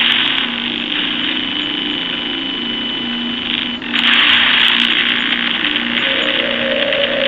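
Spirit box app sweeping: loud hissing static broken by short chopped fragments of sound that change every fraction of a second. The static jumps louder about four seconds in.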